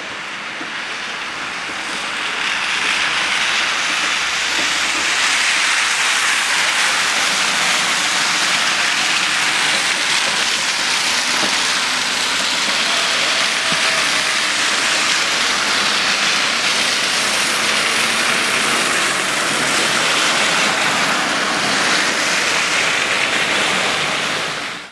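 Steady rushing noise with no clear pitch, swelling about two seconds in and then holding level.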